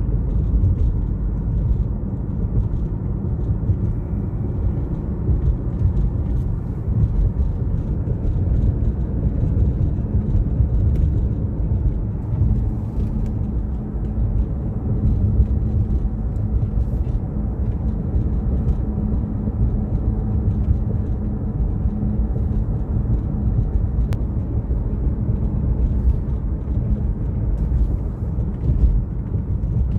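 Steady low rumble of a car driving: engine and road noise with no breaks or changes.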